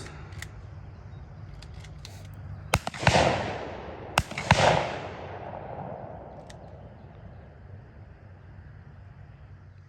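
Two shotgun shots about a second and a half apart, each a sharp crack followed by a rolling report that fades over a second or two.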